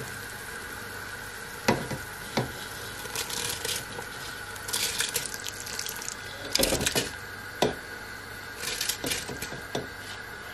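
Soaked basmati rice tipped and pushed by hand from a steel bowl into a steel pot of boiling water, splashing in several bursts, with a few sharp metal clinks, over the steady hiss of the boiling pot.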